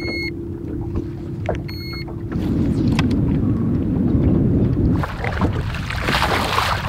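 Two short electronic beeps from a handheld digital fish scale over a steady hum, which stops about two seconds in. A louder low rumble of water follows, then, about five seconds in, the splashing of a hooked bass thrashing at the surface beside the boat.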